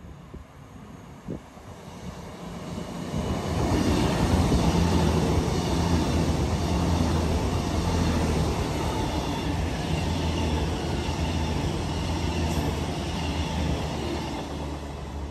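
A Class 220/221 Voyager diesel multiple unit running on the line, its underfloor diesel engines giving a steady low hum under the noise of wheels on the rails. The sound builds over about three seconds, stays loud, then eases off near the end.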